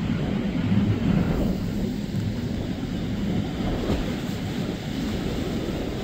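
Quad outboard motors of a center-console fishing boat running at speed past, a low steady drone that eases off about a second and a half in, leaving wind rumble on the microphone.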